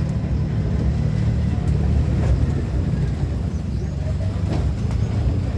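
Motor vehicle driving along a road: a steady low rumble of engine and road noise.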